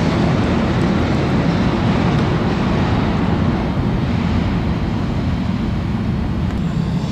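New York City subway train rumbling through the tunnel, a steady low rumble that slowly fades.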